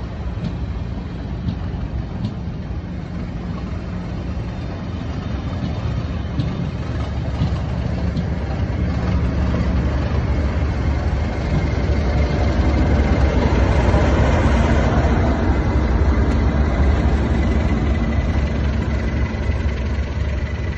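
Slow-moving train coaches rolling past, then a Class 37 diesel locomotive with an English Electric V12 engine passes close by. Its engine runs steadily and is loudest a little after halfway through, with a thin steady high whistle over it.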